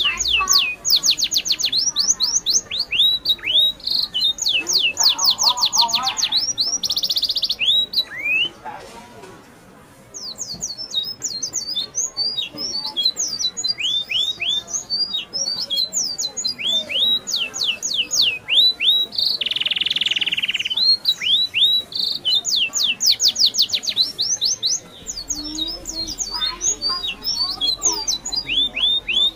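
Birds calling in the forest: quick runs of high chirps, each sweeping down in pitch, with a few short buzzy notes in between. The calling drops away briefly about nine seconds in, then picks up again.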